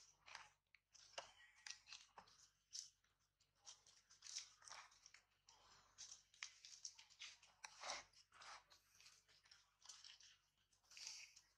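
Dry leaves crackling and crunching faintly and irregularly under monkeys moving over leaf-littered ground.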